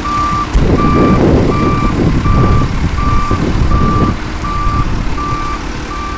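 Vehicle back-up alarm beeping steadily at one pitch, about four beeps every three seconds, over a loud low rumble that eases about four seconds in.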